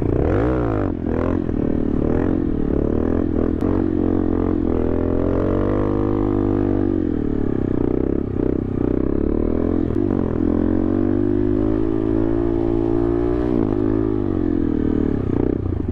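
Honda Grom's 125 cc single-cylinder four-stroke engine running under way, its pitch rising and falling with the throttle. It climbs about a second in, rises slowly toward the middle, drops, holds fairly steady, then dips briefly near the end.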